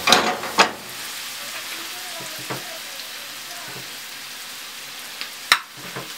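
Sliced onions sizzling in a frying pan with a steady hiss. A metal spoon scrapes and clacks against the pan in the first second, and there is one sharp knock near the end.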